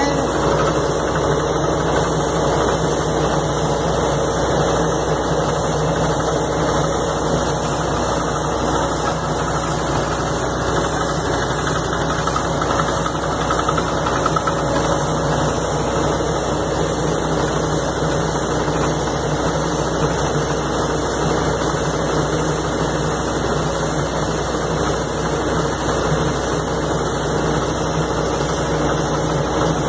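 Steady running of heavy diesel machinery: a crawler-mounted anchor drilling rig and a portable air compressor, an even engine drone with no let-up.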